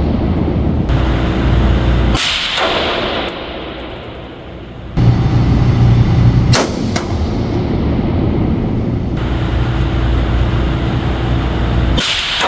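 Three single shots from a .308 AR-10 rifle, a few seconds apart, each a sharp report with a trailing echo.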